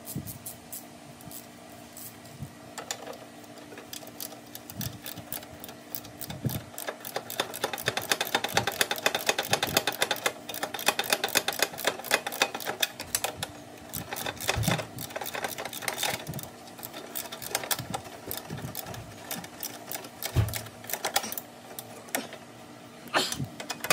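Hand ratchet and socket clicking in fast runs as 7/16 bolts are turned in, busiest through the middle stretch, with a few dull knocks between runs.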